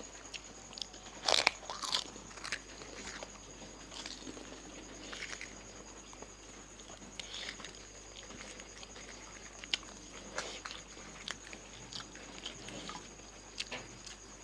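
Crisp fuchka (pani puri) shells crunching as they are bitten and chewed: scattered sharp crunches, the two loudest close together a second or two in.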